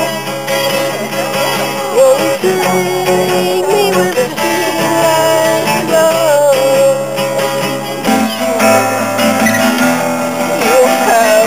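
Acoustic guitar played with a man singing along. About eight seconds in the sound cuts abruptly to another acoustic guitar being played.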